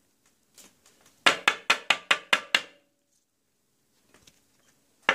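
A quick run of about seven sharp taps on a hard tabletop, roughly five a second. A second run of taps starts near the end.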